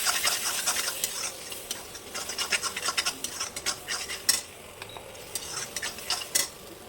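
Masala paste sizzling in oil in a kadai while a utensil stirs and scrapes it around the pan, with a run of quick scraping strokes in the middle; the masala is being fried until the oil separates.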